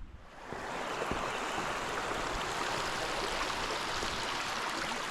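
A creek's water running and splashing, swelling up about half a second in and then going on steadily.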